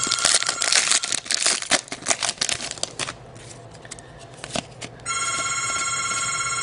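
Telephone ringing: a trilling electronic ring of several steady high tones. It stops about a second in and starts again about five seconds in. In between come sharp clicks and rustling, from trading cards and packs being handled.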